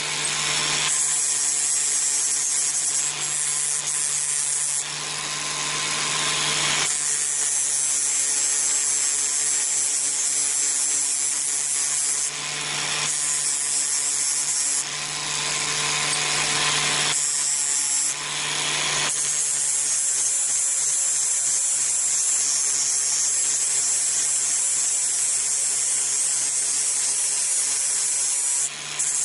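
Electric power tool running with a steady motor hum while an abrasive grinds against steel, the knife blank from a bearing. The high hiss swells and drops off several times as the contact comes and goes.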